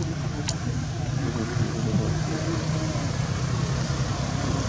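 Steady low background rumble, with one brief high chirp about half a second in.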